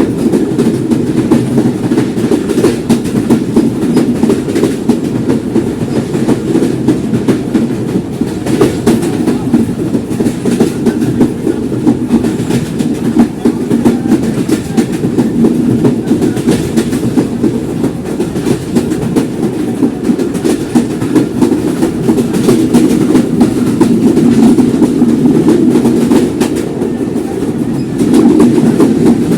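Simanta Express passenger train running on the track: a steady heavy rumble of wheels on rail with a fast, irregular clatter of clicks over the joints. It grows louder near the end.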